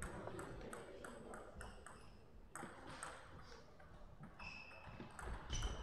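Table tennis ball struck back and forth in a rally, a quick series of sharp clicks off paddles and table for the first couple of seconds, then a few short high squeaks near the end.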